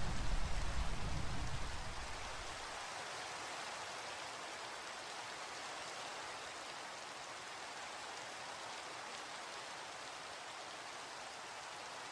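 Steady rain, with the tail of a low thunder rumble dying away in the first two or three seconds.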